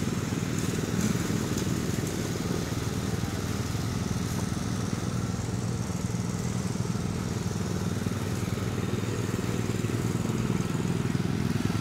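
Petrol lawn mower engine running steadily, a low even drone.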